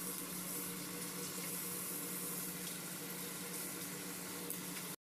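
Sausages sizzling in oil on a grill pan: a steady frying hiss with a few faint pops, cutting off suddenly near the end.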